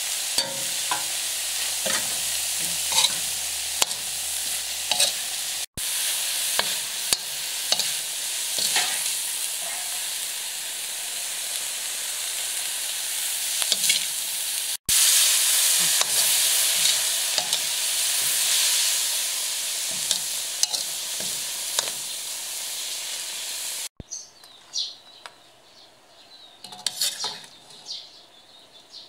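Weaver ant eggs with tomato and herbs sizzling in a steel wok while a metal spatula stirs and scrapes, with many small clicks of the spatula on the pan. About four-fifths of the way through the sizzle stops, leaving quieter scrapes and taps of the spatula as the mix is scooped out.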